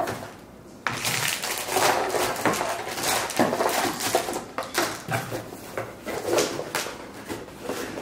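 Cardboard box and plastic packaging being handled as parts are packed away: rustling and scraping with many small knocks, starting about a second in.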